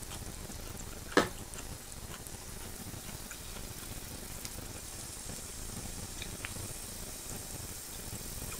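Pork belly sizzling steadily on an electric grill pan, with scattered light crackles. A single sharp click about a second in.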